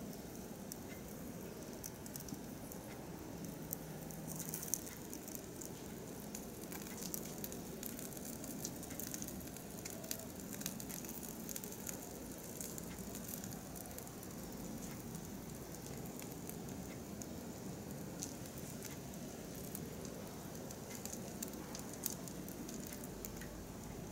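Small fire of sticks and kindling burning, with faint scattered crackles and pops over a steady low hush.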